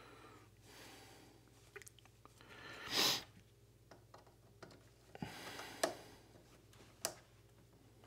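Quiet handling of stripped switch wires as they are pushed into a CNC controller's screw-terminal input block, with a few light clicks and a short rush of noise about three seconds in.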